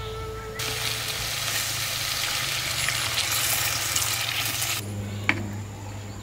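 Water poured into a hot clay pot of fish curry, hissing and sizzling for about four seconds and then stopping, followed by a single sharp knock as the curry is stirred.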